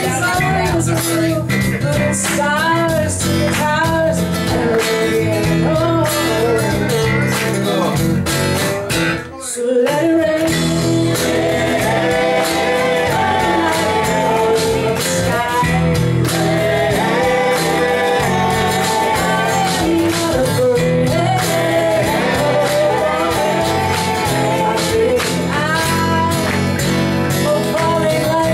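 A live soul band plays: a woman sings lead over strummed acoustic guitars and electric bass. The whole band stops briefly about nine seconds in and comes back in together.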